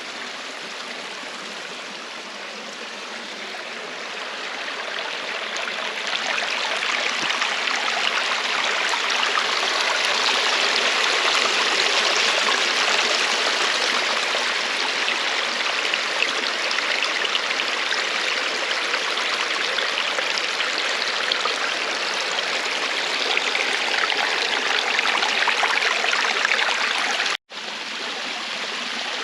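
Stream water rushing steadily, growing louder a few seconds in. It drops out for an instant near the end.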